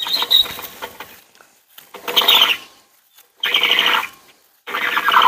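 Flagpole halyard rope running over the pulley at the top of a sectional aluminum flagpole, squeaking with each hand-over-hand pull as the flag is hoisted. There are about four squeaks, each under a second, roughly every second and a half.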